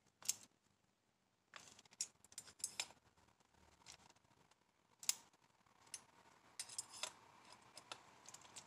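Faint, irregular light metallic clicks and taps from hand tools and small engine parts being handled during reassembly of a Dynamite .12 nitro engine.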